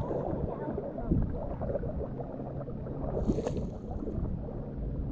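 Shallow lake water sloshing and gurgling, muffled, against a camera held at the water's surface while wading. A brief brighter splash comes a little past three seconds in.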